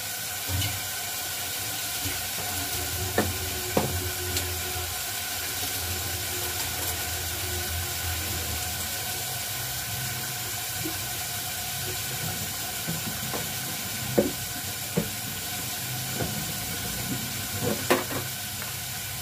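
Meat frying in oil in a pot on a gas stove: a steady sizzling hiss, with a few light knocks of utensils or containers scattered through.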